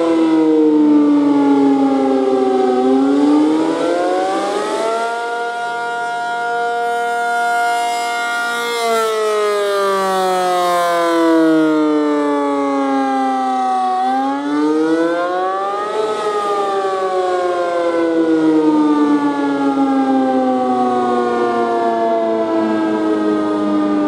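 ACA P-50 rotating outdoor warning siren sounding a test wail. The pitch falls, climbs to a steady high hold about five seconds in, slides down, climbs briefly around fifteen seconds, then falls slowly again.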